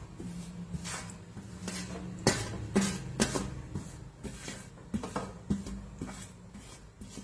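Metal spoon scraping and tapping against a metal bowl as chopped ginger and chili are scraped out onto a chicken in a steamer pot: several sharp clinks, the loudest a couple of seconds in.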